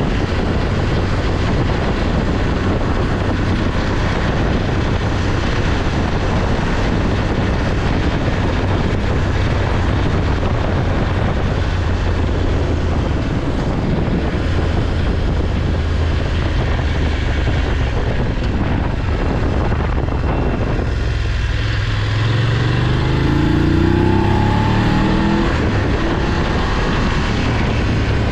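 Onboard sound of a BMW F850GS Adventure's parallel-twin engine running at road speed under a steady rush of wind and tyre noise. About three-quarters of the way through, the engine note rises as the bike accelerates.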